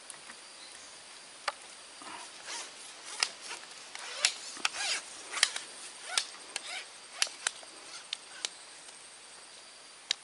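Irregular sharp clicks, knocks and rustles, bunched in the middle, from handling a just-caught climbing perch on the line and unhooking it, over a faint steady high insect drone.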